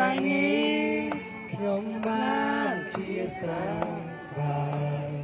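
A man singing a worship song into a microphone through a portable loudspeaker, in long held notes.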